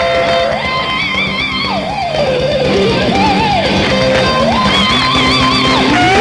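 Electric guitar playing a lead line of held notes, slides and bends, some of them wavering, over steady low sustained chords.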